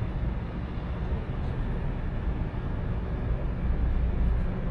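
Steady low outdoor rumble with no distinct event, heaviest in the deepest range.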